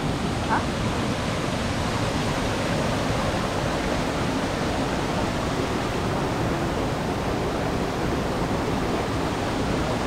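Steady rush of water from a rocky forest stream, with a small cascade tumbling over boulders into a pool.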